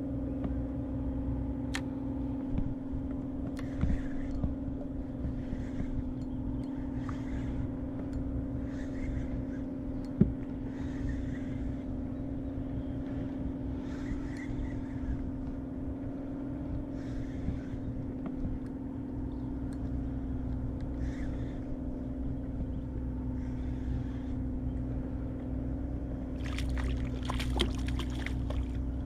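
Steady drone of a boat motor with a low rumble, over soft water swishes that come about every one and a half seconds. A burst of splashing and crackling comes near the end.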